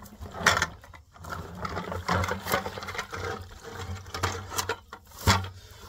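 Black walnuts and water pouring out of a plastic bucket into a wire basket: the water splashes and the nuts clatter against the wire and each other, with two louder knocks, one about half a second in and one near the end.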